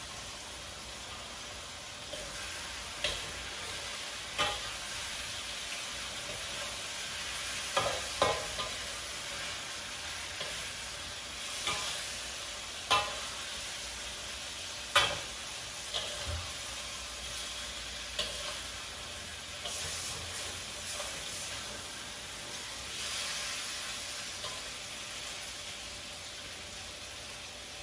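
A metal spatula scraping and knocking against a wok while a simmering potato-and-egg dish is stirred, over a steady sizzle from the pan. The knocks come about ten times, irregularly spaced.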